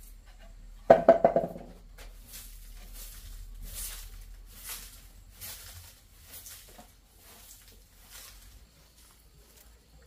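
A chicken gives a short, loud squawk in several quick pulses about a second in, then soft rustling and scuffing sounds follow.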